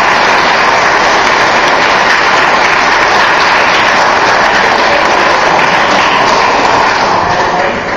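Audience applauding, loud and steady, tapering off near the end.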